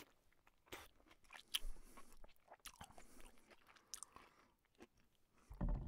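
Biting and chewing watermelon: faint, irregular crunches and smacks, with a brief louder low thud near the end.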